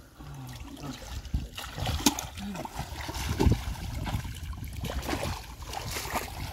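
Shallow paddy-field water splashing and sloshing in irregular strokes as people wade through it and grope in it with their hands.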